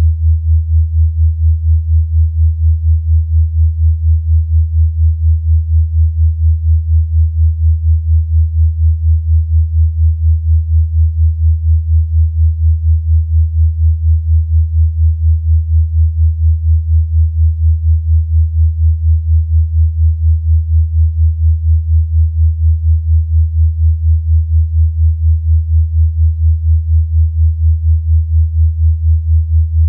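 A low, deep pure sine tone, a 'healing frequency' played for bruxism (teeth grinding), holding one pitch and pulsing evenly in volume several times a second.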